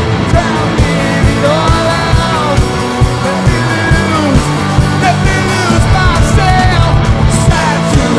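Live rock worship band playing: a steady drum beat under guitar and keyboard, with a male lead vocal singing the melody.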